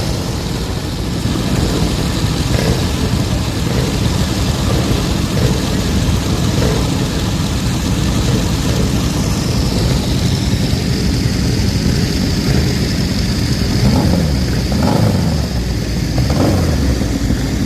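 Motorcycle engines running loudly and steadily at the start line, with the pitch bending up and down a few times near the end as the throttle is blipped.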